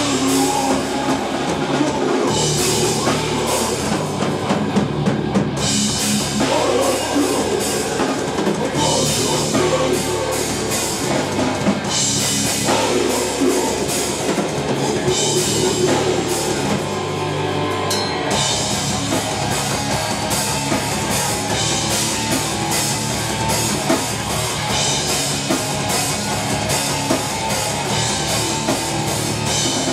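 Heavy metal band playing live: electric guitars, bass guitar and drum kit, loud and unbroken.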